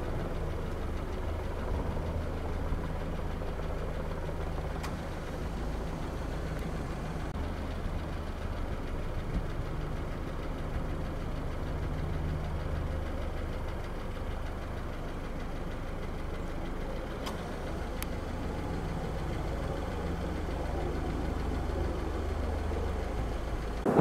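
A vehicle engine idling steadily: a low, even hum, with a few faint clicks.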